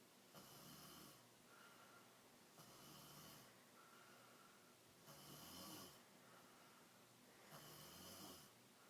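A person snoring faintly in sleep, with four snores about two and a half seconds apart and softer breaths between them.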